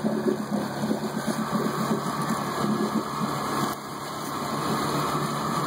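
Can-Am Renegade 800 XXC's V-twin engine running steadily while the ATV sits sunk deep in creek water.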